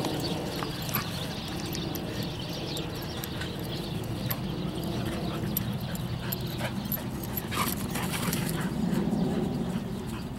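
Dogs vocalising as they play-fight and chase each other on grass.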